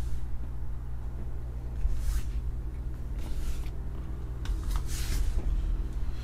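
Steady low hum with a few short hisses, about two, three and five seconds in.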